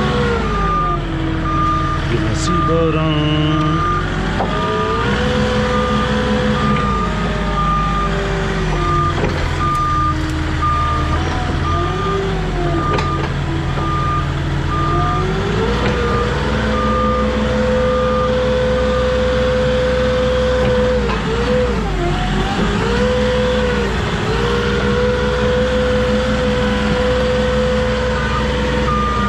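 Truck-mounted forklift's engine revving up and down as it manoeuvres under load. Its reversing beeper sounds about once a second, stops about two-thirds of the way through, and starts again near the end.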